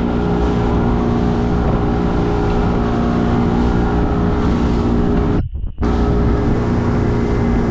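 Boat engine running steadily at speed under a constant rush of wind and water noise, with a split-second dropout about five and a half seconds in.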